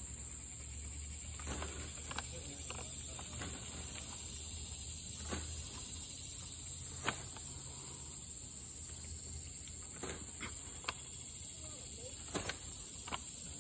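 A steady high-pitched insect drone, with scattered light clicks and rustles as pine needles brush against the phone.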